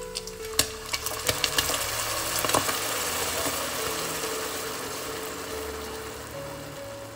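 Chicken gizzards sizzling in a hot pot with sharp pops, then hot water poured in from a kettle: a steady pouring hiss that eases slightly near the end.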